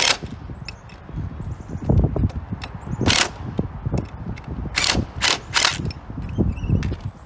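Cordless driver giving a handful of short zaps to tighten the bolts on a mobility scooter's wheel rim, with clanks of handling in between; the last three zaps come close together about five seconds in.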